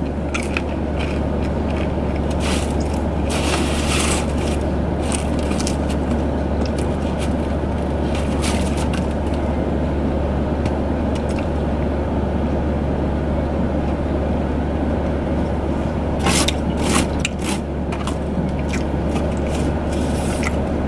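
Steady low hum and rushing noise inside a car cabin, with intermittent scraping and crinkling handling noises, the loudest cluster about sixteen seconds in.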